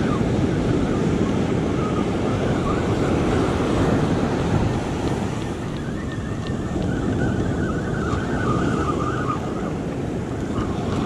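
Wind buffeting the microphone over waves washing up the beach, with the whir of a spinning reel being cranked coming and going.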